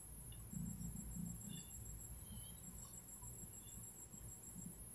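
Quiet stirring of vegetables frying in a non-stick pan with a spatula, under a faint, steady, high-pitched pulsing trill.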